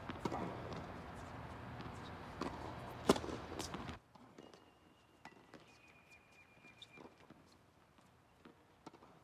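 Tennis balls struck by rackets during a doubles rally, with footsteps on the hard court. The sharpest hit comes about three seconds in. A steady background rush stops suddenly about four seconds in, leaving fainter scattered taps.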